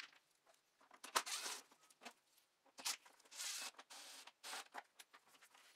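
Faint, irregular clicks and short scraping rustles of hands working at a car headlight assembly's mounting bolts and plastic housing.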